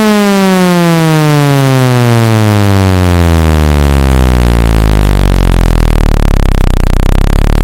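Loud synthetic speaker-cleaning tone, a buzzy electronic note sliding steadily down in pitch and settling into a steady low hum about halfway through. It is played to vibrate water or dust out of a phone's loudspeaker.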